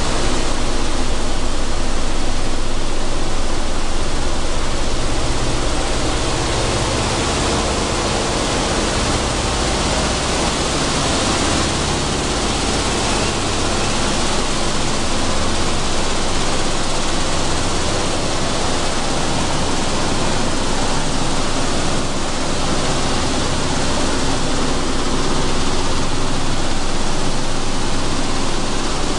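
Sunflower seed hulling machine running: a loud, steady rushing noise with a faint low hum underneath.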